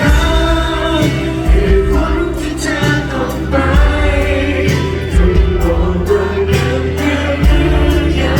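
A male singer singing a Thai pop song with a full band, loud and amplified over a steady bass line and drum beat.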